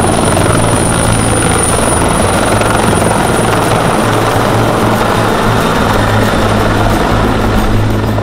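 Bell 412 EP helicopter flying low and climbing away, its four-blade main rotor beating steadily over the running twin turboshaft engines, with a high turbine whine that fades after about two seconds.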